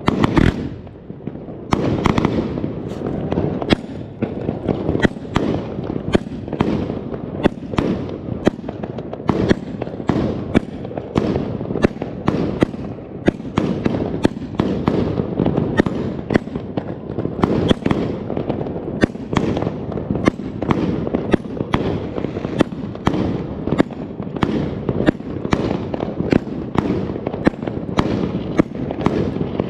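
Extreme Fireworks 'Excalibur' 99-shot firework cake firing continuously: a dense run of sharp bangs and crackles, several a second, without pause.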